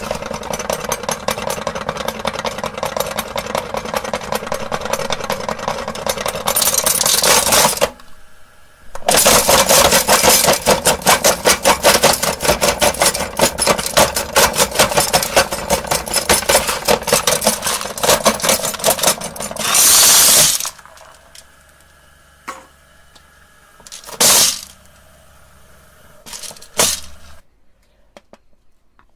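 Electric meat grinder running while crushing glass marbles: a dense rapid clatter of clicks and cracks over the motor. It breaks off briefly about eight seconds in, resumes loudly until about twenty seconds in, then the motor runs more quietly with two short loud bursts of grinding.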